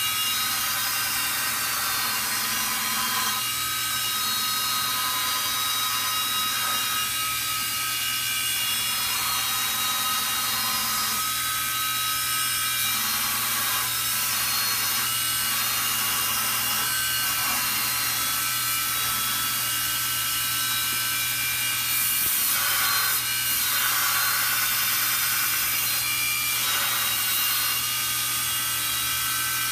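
Homemade 2x72 belt grinder, driven by a recycled 3/4 hp table-saw motor turning about 3,450 RPM, grinding a small piece of mild steel on its abrasive belt: a steady motor hum and whine under a continuous hissing grind. The grinding swells for a few seconds near the end as the steel is pressed harder.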